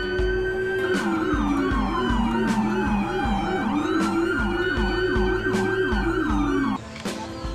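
Electronic toy siren: a steady note, then a fast wail sweeping up and down about twice a second over a slower falling tone, which cuts off suddenly near the end. A steady low beat of background music runs underneath.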